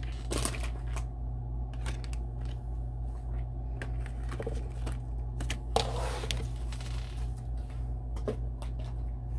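Tarot and oracle cards being handled: cards lifted one by one from a stand and the deck picked up, with scattered light clicks and a longer sliding rustle of cards about six seconds in.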